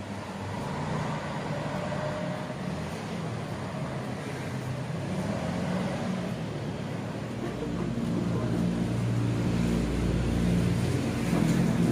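City street traffic noise, with a motor vehicle's engine running close by, its low rumble getting louder from about two-thirds of the way in.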